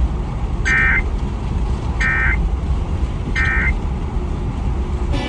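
Three short bursts of Emergency Alert System SAME digital data tones, the end-of-message code that closes the alert. Each burst lasts a fraction of a second, with about 1.3 seconds between them, over a steady low rumble.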